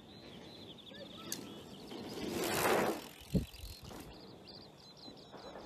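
Bicycle riding up a dirt jump: a rushing tyre noise on the dirt swells about two seconds in and fades, with a short low thump a little after three seconds.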